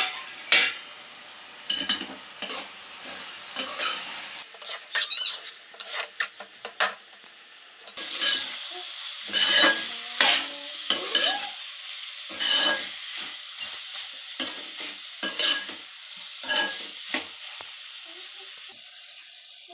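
Steel spatula stirring and scraping mushroom curry in an aluminium pot, with irregular clinks and scrapes of metal on metal over a steady sizzle of frying.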